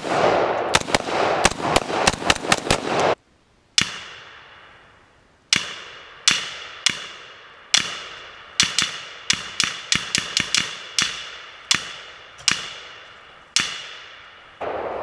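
A long string of AR-15-type rifle shots, about two dozen, some spaced out and some in quick runs of several a second, each trailing off in a long echo. For the first three seconds the shots come over a steady rushing noise that cuts off abruptly.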